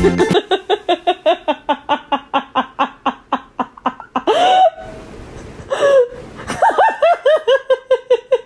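A woman laughing hard in quick, breathy bursts, two longer drawn-out pitched cries about halfway through, then another run of laughter.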